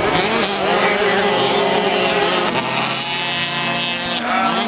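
Several small 50cc race motorcycle engines revving at high pitch, their notes rising and falling over one another as the bikes accelerate and shift.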